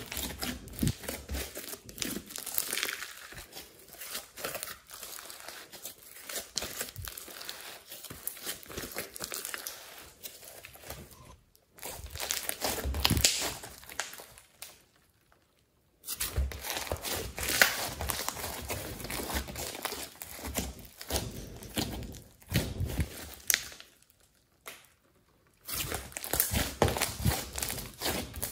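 Thick slime mixed with clay and glitter being kneaded, folded and stretched by hand. It makes dense, sticky crackling clicks, like air pockets popping, and the handling stops briefly twice, about halfway through and again near the end.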